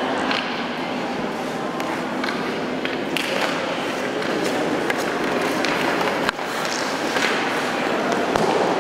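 Ice hockey play in an indoor rink: skate blades scraping the ice and sticks tapping and clacking on the ice and puck around a faceoff, with scattered sharp clicks over a steady hall-echoed background of voices.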